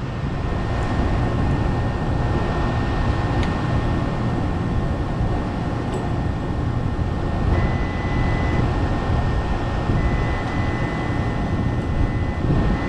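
Steady drone of an air-conditioning unit running under load. A multimeter's continuity beep sounds for about a second, then again for about two seconds, as the compressor windings are tested to ground.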